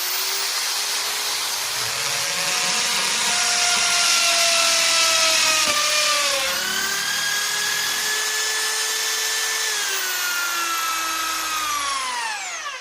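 Electric drill running as it bores into a wound roll of PVC card-printer ribbon: a steady motor whine that sags in pitch about halfway through as the bit bites, steadies again, then winds down with falling pitch near the end.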